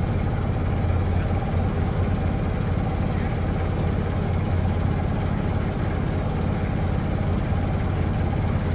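Boat engine running steadily, with a low, even hum.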